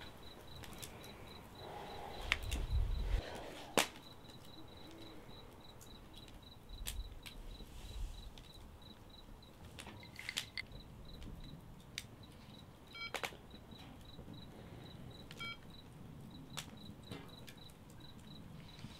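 A cricket chirping steadily in evenly spaced pulses, over sharp clicks and soft knocks as a handheld digital voice recorder is handled and its buttons pressed. Short electronic beeps sound twice in the second half.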